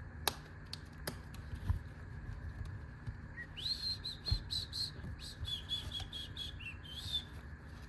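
A few sharp clicks and low knocks from small tools and a pouch being handled. From about three and a half seconds in, a bird chirps a string of short, high whistled notes for about four seconds.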